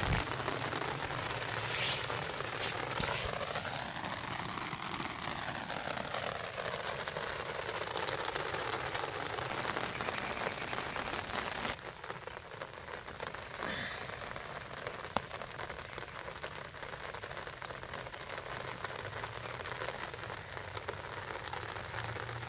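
Steady light rain falling, a little quieter from about twelve seconds in.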